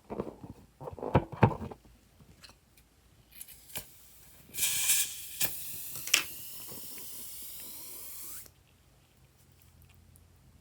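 A few handling clicks and taps, then an aerosol can spraying: a loud hiss for about four seconds that cuts off sharply.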